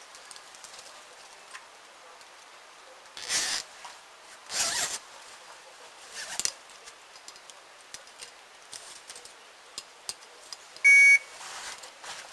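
Three short scraping rustles in the first half, then near the end one short, loud electronic beep from a carp-fishing bite alarm.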